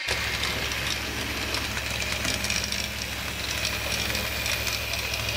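Model railway train running along the layout's track: a steady electric motor hum with fine, rapid clicking of the wheels on the rails.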